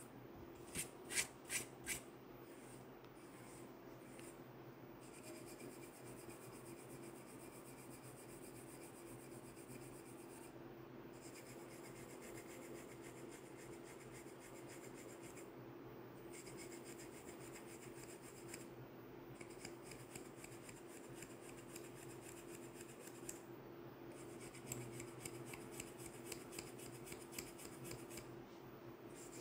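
Wooden comb scratching through short hair against the scalp, with about four louder strokes a second or two in. After that, a steady fine scratching and rubbing of fingertips working through the hair, with a few sharper strokes near the end.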